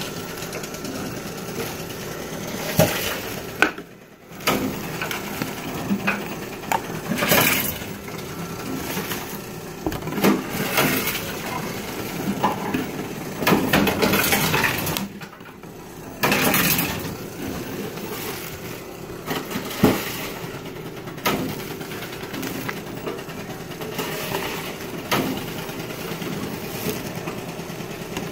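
Tomra T-70 reverse vending machine taking in plastic bottles one after another: a steady machine hum with repeated knocks and clatters as each bottle is pushed in and carried off by the intake.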